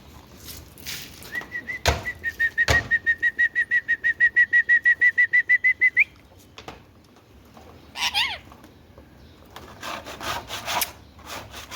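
Indian ringneck parakeet giving a fast, even run of short high whistled notes at one pitch, about six a second for some four seconds, with two sharp clicks near its start. About eight seconds in, a single short call falls in pitch, followed by a scratchy rustling.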